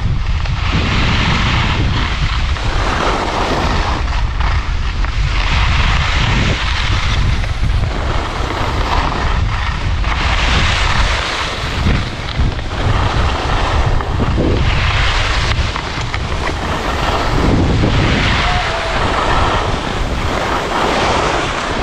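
Skiing downhill: wind buffets the microphone with a loud, steady rumble, and the skis hiss over the snow, swelling every three to four seconds as they scrape through each turn.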